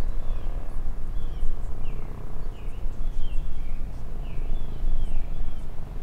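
Wind buffeting the microphone with a low rumble, while a bird gives a dozen or so short, curved chirps.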